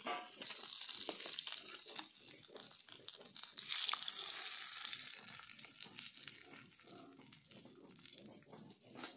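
Hot mustard oil sizzling and crackling in a kadai as fried kewai (climbing perch) are lifted out with a spatula; the sizzle swells for a couple of seconds in the middle.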